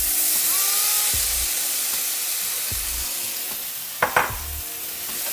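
Onion and potato frying in olive oil in a skillet, a steady sizzle, with two sharp knocks about four seconds in.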